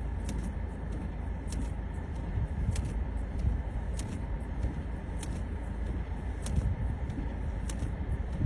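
Road vehicle noise: a steady low engine and road rumble, with faint light clicks about once a second.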